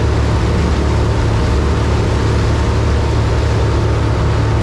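Centurion Ri230 wake boat's inboard engine running steadily under way, a low drone under the rushing hiss of its breaking surf wake.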